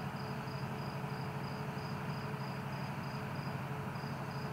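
A cricket chirping steadily, about three high chirps a second, over a steady low hum.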